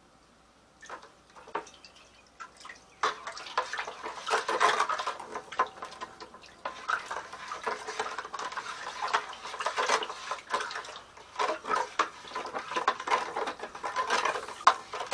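Sanitizer crystals being stirred into warm water in a plastic bucket: swishing water and a stirrer scraping and clinking against the bucket. There are a few knocks at first, and the stirring starts in earnest about three seconds in.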